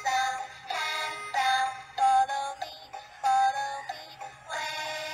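A simple electronic melody of synthesized, voice-like notes, played one after another as a short tune.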